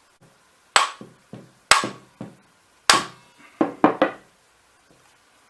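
Hammer tapping on a Ramset RS22 powder-actuated tool to drive out its stuck barrel: about six sharp knocks, three spaced about a second apart, then three in quick succession, with smaller knocks between.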